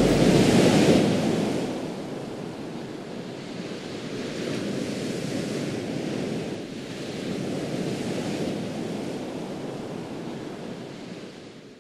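Sea waves breaking and washing up on a sandy beach. A wave crashes loudly in the first two seconds, then the surf goes on more softly in slow swells and fades out at the end.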